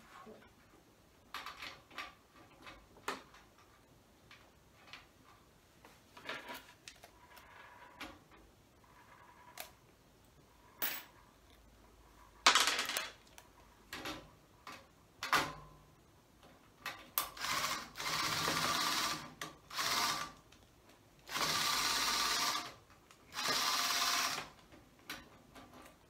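Small cordless power screwdriver driving the rack screws that hold a patch panel to the rack rail: three runs of a second or two near the end. Earlier come scattered clicks and knocks of the screws and metal hardware being handled.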